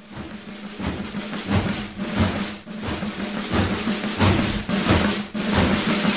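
Drum-heavy intro of a rock music track, growing louder.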